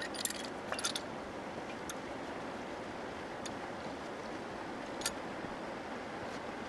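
Climber going up a steel ladder fixed to a rock face: a handful of short, sharp metallic clicks, two close together about a second in and another about five seconds in, over a steady rushing noise.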